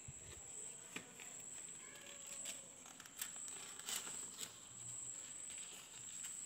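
Faint rustling and soft crinkles of a sheet of A4 paper being folded and tucked by hand, over a steady high-pitched whine.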